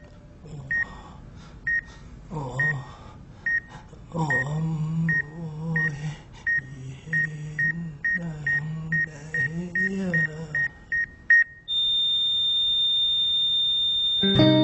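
Hospital patient monitor beeping with each heartbeat, about once a second at first and quickening to more than two a second. About 12 s in it goes into a continuous flatline tone, the sign that the patient's heart has stopped. Over the beeps a man speaks in a breaking, sobbing voice, and music comes in near the end.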